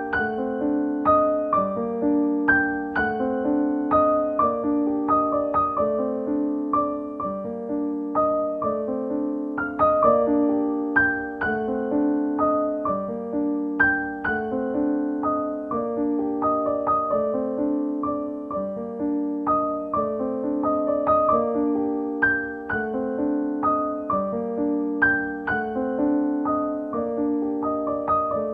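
Background piano music: a steady run of gently struck notes in a repeating pattern.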